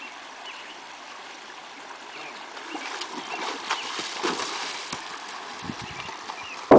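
Shallow ditch water running, then a Kentucky Mountain Saddle Horse gelding's hooves splashing and knocking as it wades through and climbs out onto the bank, about three to five seconds in.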